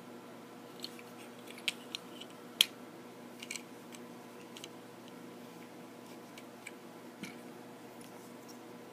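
Plastic action-figure parts being handled and snapped into place while a Transformers figure is transformed: a scattering of short clicks and taps, the sharpest about two and a half seconds in.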